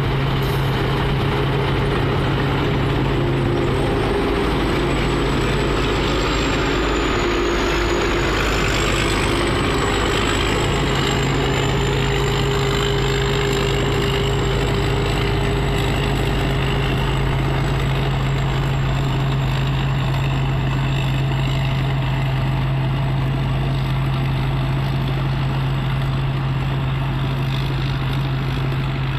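Rice combine harvester running steadily while it cuts rice, a continuous engine hum with a thin high whine over it.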